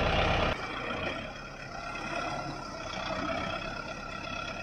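Kubota 4WD tractor's diesel engine running, loud and close at first, then dropping suddenly about half a second in to a quieter, steady hum of engine tones heard from further off.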